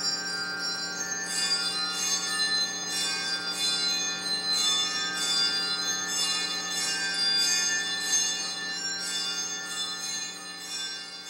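Music of ringing, bell-like metallic tones: a sustained low drone with many held tones under bright high strikes about twice a second, dying away near the end.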